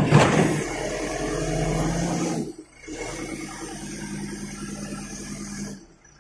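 JCB backhoe loader's diesel engine running steadily, with a loud grinding crunch right at the start as the bucket digs into rubble and soil. The engine sound dips briefly about two and a half seconds in and drops off just before the end.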